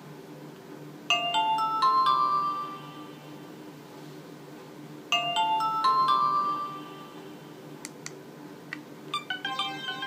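Nokia 2310 mobile phone previewing an alarm-style ringtone through its small speaker: a short run of bright electronic notes about a second in, the same run again about four seconds later. Near the end, after a couple of clicks, a different tone begins as the next alarm tone in the list starts.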